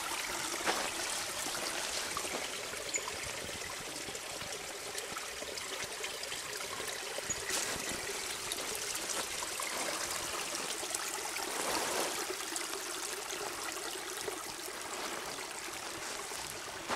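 A small creek trickling steadily over gravel, with a few faint clicks.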